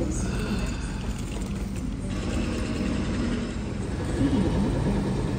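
Steady low rumble of vehicle engines running in the background.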